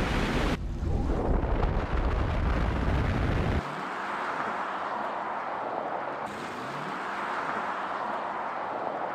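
Heavy wind buffeting on a car-mounted camera at speed, a dense deep rumble with no engine note. About three and a half seconds in it cuts abruptly to a steadier, lighter rush of wind noise without the deep rumble.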